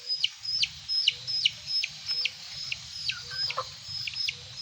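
Young chickens peeping: a steady run of short, high, sharply falling peeps, about two a second, with a few soft low clucks among them.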